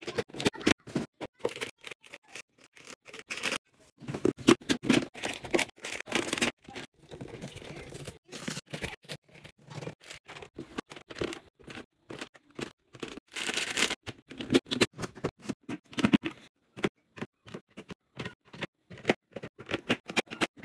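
Handling of a clear plastic storage bin, packs of baby wipes and foil sachets: a quick run of sharp clicks and taps on plastic, with stretches of crinkling, rustling packaging.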